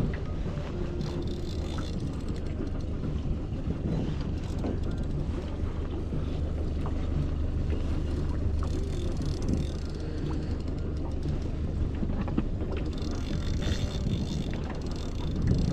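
Boat motor running steadily at low speed, a constant low hum, with wind buffeting the microphone.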